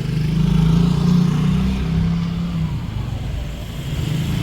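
Motor scooter engines running in street traffic, a steady engine note that swells and eases, over traffic noise.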